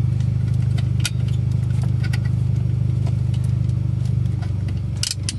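Mitsubishi Lancer Evolution X MR's turbocharged 2.0-litre four-cylinder engine idling steadily, heard from inside the cabin. Over it come a few light plastic clicks as a phone is pushed into a windshield-mounted cradle, two in the first half and a quick pair near the end.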